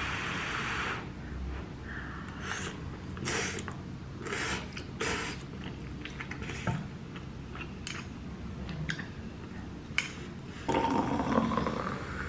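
Metal fork and spoon clinking and scraping against a nonstick saucepan in short, scattered clicks. Near the end, champagne is poured into a tall glass, splashing and fizzing as it foams up; this is the loudest sound.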